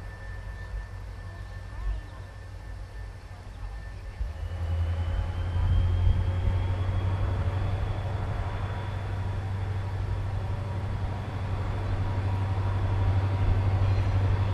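A pair of EMD SD40-2 diesel locomotives, running light with no train, throttle up about four seconds in. Their 16-cylinder two-stroke diesels go from a low rumble to a strong, steady drone under power, with a high whine slowly climbing in pitch, and grow louder as they come near.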